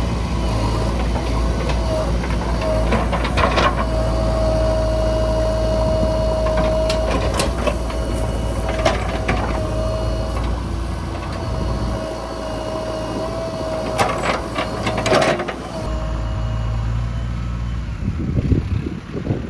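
Heavy diesel machinery running steadily, with a wavering whine and several sharp clanks along the way.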